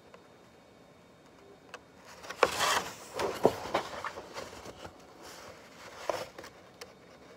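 Pages of a large picture book being turned and handled: a burst of paper rustling with several sharp taps about two and a half seconds in, and a lighter tap about six seconds in.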